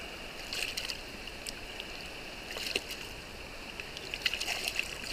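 Fast-flowing river water rushing steadily over rocks, with a few small splashes from a hand dipped in the water close by.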